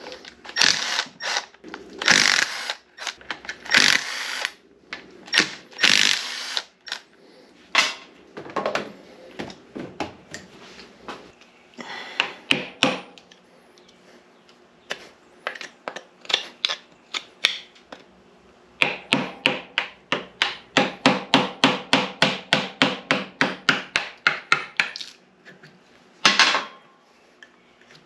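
Hand tools clanking and knocking on the metal parts of an NP205 transfer case during teardown: irregular sharp knocks with a little ringing, then a steady run of even knocks about four a second for several seconds past the middle.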